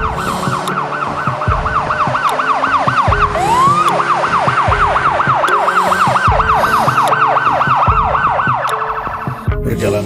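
Police siren in a fast yelp, its pitch rising and falling about four times a second, with one slower upward sweep a third of the way in; it cuts off near the end. Low, regular thumps sound beneath it.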